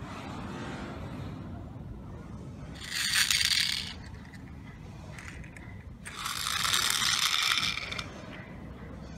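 Small die-cast toy cars rolling across a rough stone slab, their wheels grinding and rattling on the stone in two stretches: about a second long three seconds in, and about two seconds long from six seconds in.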